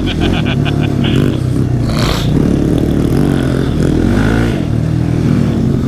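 ATV engine, heard from the rider's seat, running and revving up and down while riding a dirt trail. A quick run of ticks sounds in the first second.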